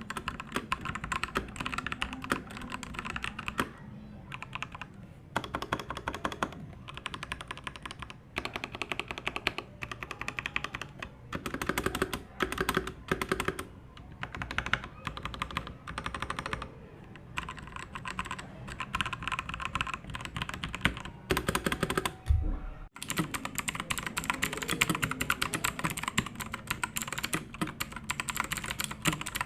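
Typing on a FreeWolf mechanical keyboard: rapid, continuous key clicks in bursts with short pauses, and a brief break about 23 seconds in.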